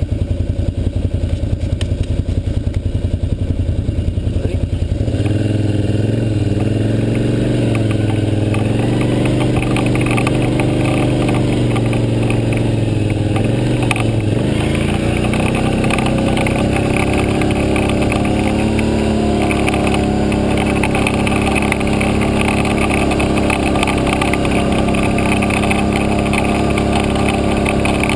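ATV engine idling with a rapid low pulse, then revving up about five seconds in as the quad pulls away and runs along a dirt trail. The engine note dips briefly about halfway through, then holds steady.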